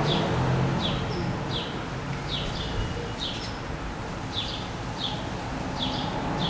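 A small bird chirping over and over, short high falling chirps a little more than once a second, over a steady low rumble of city traffic.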